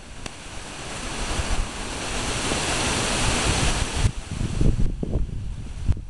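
Wind and handling noise on a phone microphone: a rushing hiss that builds and then cuts off suddenly about four seconds in, followed by a few low bumps.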